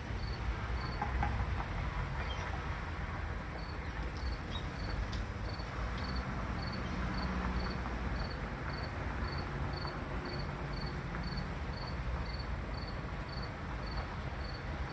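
A cricket chirping steadily, about three short high chirps a second, over a steady low rumble.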